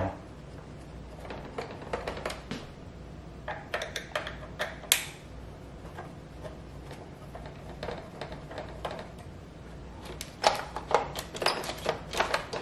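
Screws being backed out of a Roomba 614 robot vacuum's plastic chassis with a screwdriver, with light clicks and rattles of plastic parts being handled. The clicks are scattered at first, then come in a quicker run near the end.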